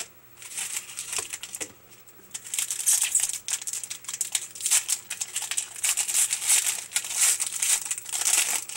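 A trading card pack wrapper crinkling and tearing as it is opened and handled, in irregular bursts of crackly rustling.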